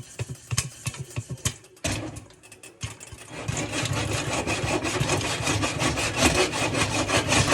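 Popcorn kernels popping in hot oil in a pan on the stove: scattered pops for the first few seconds, then a dense, rapid crackle of popping and sizzling, louder, from about three seconds in.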